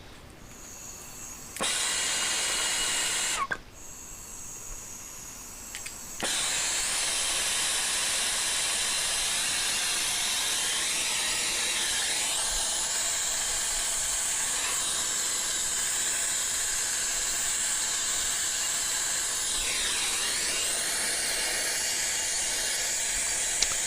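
Handheld gas soldering torch hissing as it heats a copper-pipe joint for soldering. A short hiss starts about two seconds in and cuts off suddenly about a second and a half later, then the torch starts again at about six seconds and hisses steadily.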